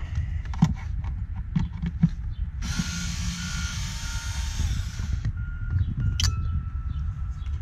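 Cordless driver with a Torx bit running for about two and a half seconds, backing a Torx bolt out of the front of a plastic airbox, with a steady whine over a whirring motor. Light clicks and knocks of the bit and hands on the plastic come before and after.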